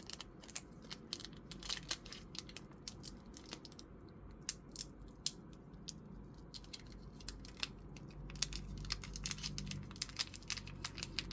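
Foil booster-pack wrappers crinkling and trading cards being handled, a string of small crackles and clicks that grows busier near the end.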